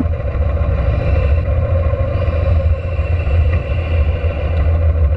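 Kawasaki Vulcan 900 V-twin cruiser motorcycle riding along at a steady pace: a steady low engine rumble mixed with wind noise on the camera microphone.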